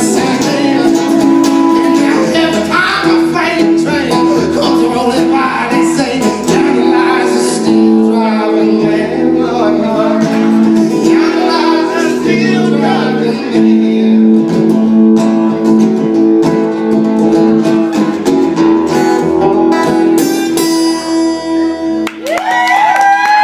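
Acoustic guitar played in a folk-blues style, with singing over it.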